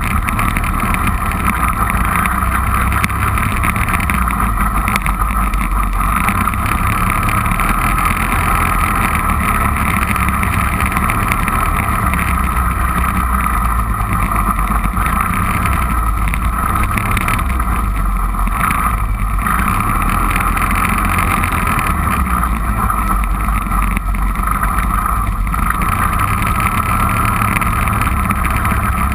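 Four-wheeler (ATV) engine running steadily under way, loud and unchanging throughout.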